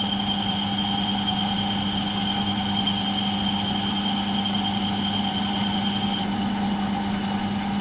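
Milling machine spindle running steadily, turning a twist drill as it bores through aluminium alloy, with a thin high whine that stops about six seconds in.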